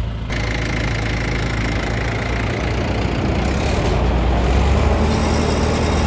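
Tractor-driven Virdi thresher running empty on a test run: the tractor engine and the spinning threshing drum make a loud, steady mechanical din with a deep hum underneath, growing a little louder about five seconds in.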